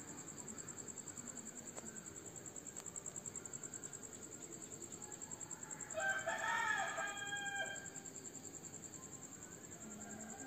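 A rooster crows once, about six seconds in, a single call lasting under two seconds. Underneath, crickets keep up a steady, high, pulsing chirr.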